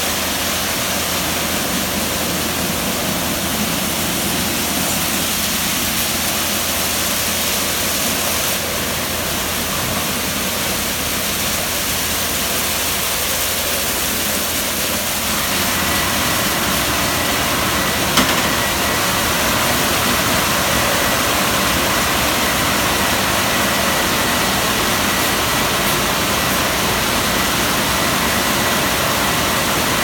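Tunnel car wash machine running: water spraying and rotating brushes scrubbing a car, with the machine's motors, a steady rushing noise. About halfway through it gets a little louder and a thin steady whine joins in, and there is one sharp knock shortly after.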